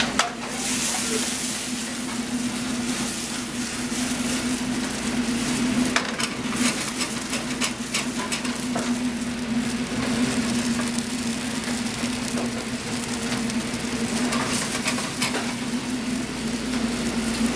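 Onions and pancetta sizzling in a sauté pan on a gas range while the pan is flambéed, with occasional clinks of the pan and utensils. A steady low hum runs underneath.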